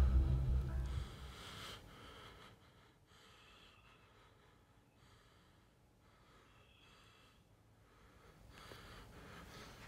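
A low, ominous music drone cuts off about a second in. After it, a person breathes in short, audible breaths about once a second in the quiet.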